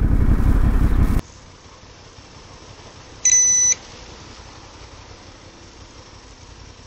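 Low motorcycle riding rumble of engine and wind for about a second, cut off abruptly. A few seconds in comes a single high electronic beep lasting about half a second, then only a faint hiss.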